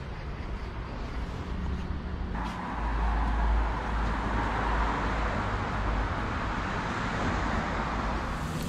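Road traffic noise: passing cars with tyre hiss over a low rumble, jumping louder about two seconds in.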